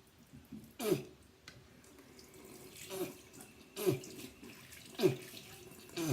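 Rinsing after tooth brushing at a bathroom sink: the tap runs while the mouth is rinsed and spat out in a series of short spits about a second apart.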